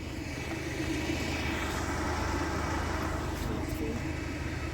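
Steady low rumble of road vehicles idling at the closed level crossing.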